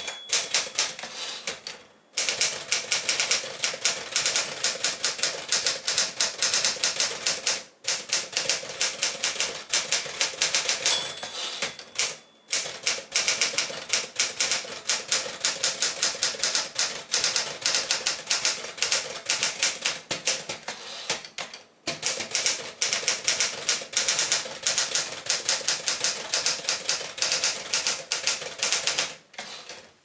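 1965 Smith-Corona Sterling manual portable typewriter being typed on at speed, a rapid clatter of typebars striking the platen, broken by a few short pauses. About eleven seconds in, a short ring of the margin bell sounds, followed by a pause. The typing stops shortly before the end.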